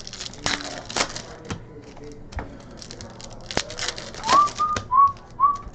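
Irregular sharp clicks and snaps of trading-card packs and cards being handled, opened and sorted. From about four seconds in, a short run of four or five brief whistle-like chirps.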